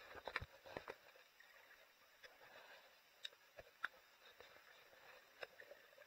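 Near silence through an action camera held underwater, with scattered faint clicks and knocks from water movement and handling of the housing, several in the first second and a few more later.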